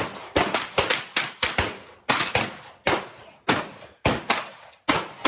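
Rapid shotgun fire: well over a dozen shots in quick strings a few tenths of a second apart, with short breaks between strings. Each shot trails off in a brief echo.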